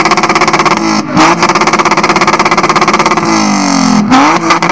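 BMW E46 3.0-litre petrol straight-six being revved through its exhaust: held at high revs with a rapid stutter, a quick dip and recovery about a second in, easing down after about three seconds, then a sharp blip near the end before falling away.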